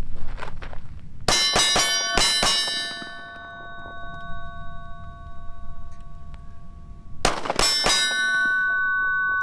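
Two quick strings of pistol shots, about five and then about four, each hitting a steel target that rings on with a metallic tone for several seconds afterward.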